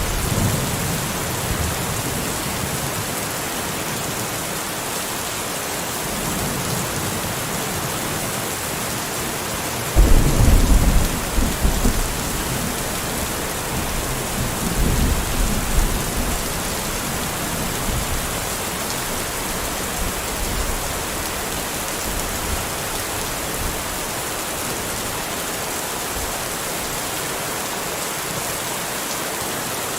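Steady rain with thunder. A loud rumble of thunder comes about a third of the way in and rolls on for several seconds, with fainter rumbles at the start and again around the middle.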